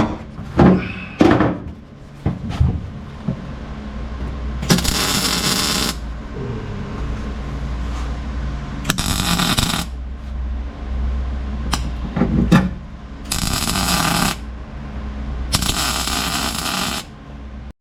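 Welder laying short stitch welds on a patch panel in a car's floor: four bursts of steady crackling, each a second or so long, with pauses between them and a low hum underneath.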